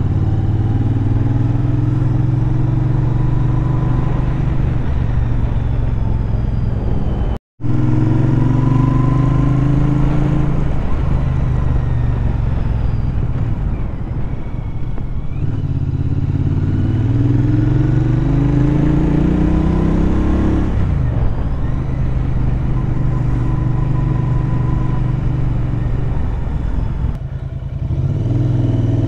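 Royal Enfield Interceptor 650's parallel-twin engine, breathing through an aftermarket 2-into-1 exhaust, running under way on the road. Its pitch rises in pulls through the gears in the middle and drops back at each shift. The sound cuts out for a split second about a quarter of the way in.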